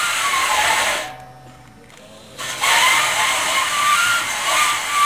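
Cordless drill running against the fan's rusty steel to scrub off rust, with a wavering motor whine. It stops about a second in and starts again about a second and a half later.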